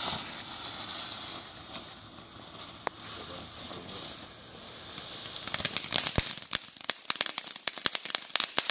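A consumer firework hisses steadily for about five seconds, then breaks into a rapid string of sharp crackling pops that keeps going: small crackling pieces landing on the ground and popping.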